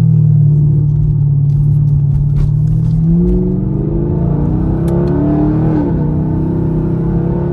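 Straight-piped 6.2-litre LT1 V8 of a sixth-generation Camaro SS running at steady revs, then accelerating about three seconds in, its pitch rising. Near six seconds the pitch dips briefly, as with an upshift of the 8-speed automatic, and then climbs again.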